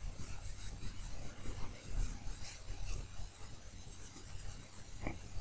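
Faint, irregular rubbing and scratching noises over a low steady hum, with one short sharp click about five seconds in.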